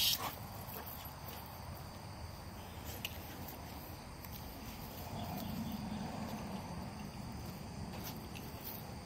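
Quiet, steady high-pitched insect chorus, with a couple of faint ticks and a soft low rumble swelling about five seconds in and fading again.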